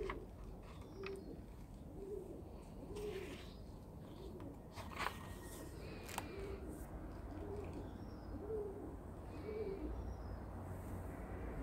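Pigeon cooing in a steady run of short low notes, each rising and falling, about one every two-thirds of a second, with faint higher bird chirps and a couple of brief clicks about five and six seconds in.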